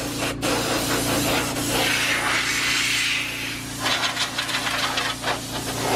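Compressed air from an air-compressor blow gun hissing into a PC tower case in two long blasts, blowing out dust. A steady low hum runs underneath. In the second half there is a run of rapid scraping, rattling clicks.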